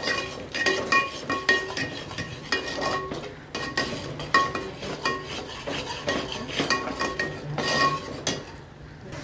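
Metal spoon scraping and clinking against the sides and bottom of an aluminium pot, about twice a second, as it stirs a thick onion, ginger-garlic and dry-spice masala being fried (bhuna). Each stroke makes the pot ring, and the stirring eases briefly near the end.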